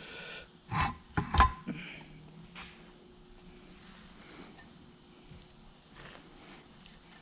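A few sharp metallic knocks and clinks about a second in, as the clutch pressure plate is handled on the workbench. Then a low steady background with a faint hum.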